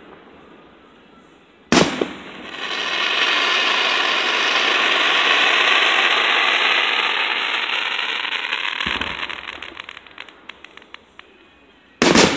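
Fireworks: an aerial shell bursts with a sharp bang about two seconds in, followed by a long crackling hiss of sparks that swells and fades over some eight seconds into scattered crackles. Near the end, two more shell bursts go off in quick succession.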